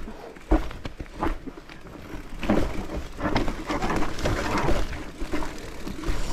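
Mountain bike rattling along a rough trail, with knocks and clatter as it goes over bumps. There is a sharp knock about half a second in, and the rattling grows busier and louder from about two and a half seconds in.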